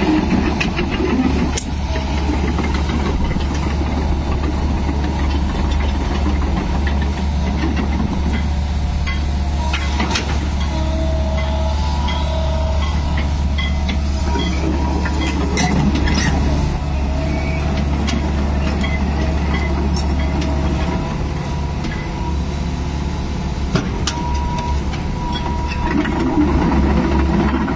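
Sumitomo SH120Z3 hydraulic excavator running steadily under operation, a constant low diesel hum with brief whines coming and going and a few sharp clanks as the boom and upper structure are worked.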